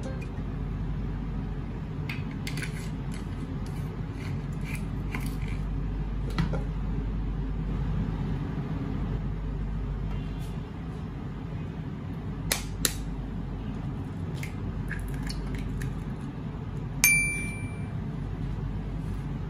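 Oil heating in a nonstick wok on an electric stove over a steady low hum, with faint scattered ticks. A little past halfway come two sharp taps, and near the end a short clink with a brief ring, as an egg is cracked into the pan.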